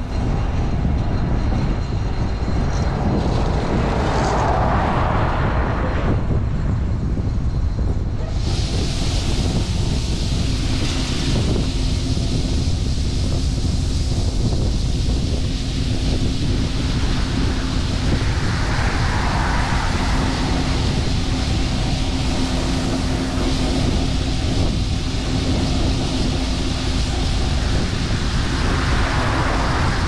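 John Deere 7720 Titan II combine running under load while unloading, its six-cylinder turbocharged diesel giving a steady low rumble. A steady hum joins in about nine seconds in, and the unloading auger pours shelled corn into a gravity wagon.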